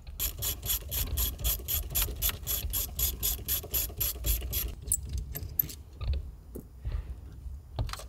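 Rapid, even ratchet clicking, about five clicks a second, as the steering wheel's hub fastenings are worked loose; after about four and a half seconds it gives way to a few scattered clicks and light knocks.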